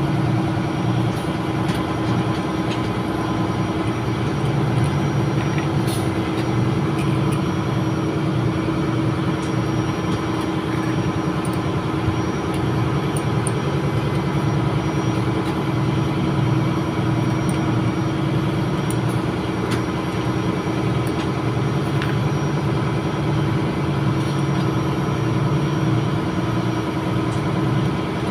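Steady low drone of running ship's engine-room machinery, with a constant hum and a few faint light clicks now and then.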